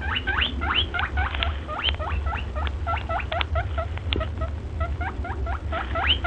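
Rapid high squeaks, about five a second, each rising sharply in pitch, played as a rabbit's call, over a steady low hum.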